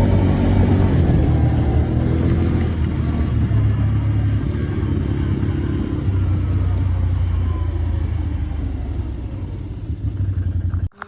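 Motor vehicle engine running steadily at low revs, fading slightly, then cut off abruptly near the end.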